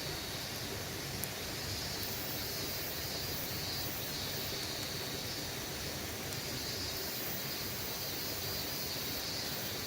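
Steady rush of a mountain stream, with cicadas buzzing high up in swells that rise and fade, and a single sharp pop from burning firewood about a second in, followed by a few faint ticks.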